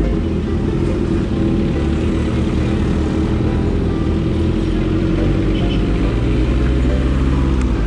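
Motorcycle engine running as the bike rides slowly through traffic, with wind and road noise. The engine note grows a little stronger about two-thirds of the way through.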